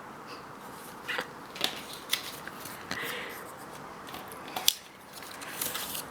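A few scattered sharp clicks and small rustles, the loudest a single click near the end.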